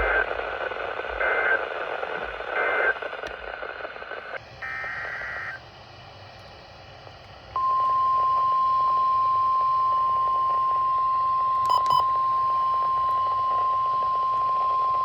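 NOAA Weather Radio Emergency Alert System audio: three short warbling SAME data bursts over radio static, the end-of-message signal of a warning. After a cut come one more short data burst and a few seconds of faint hiss. About halfway in, the steady single-pitch Weather Radio warning alarm tone starts and holds.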